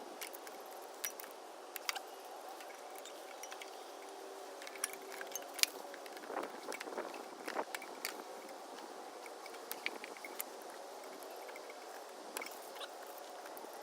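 Light metallic clicks and clinks of hand tools working on a lawnmower's fuel line and carburetor, scattered at irregular intervals over a faint steady hum.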